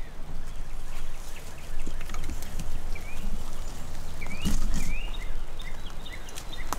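Small birds chirping in many short whistled notes over rain and a steady low rumble, with a louder rustle or knock about four and a half seconds in.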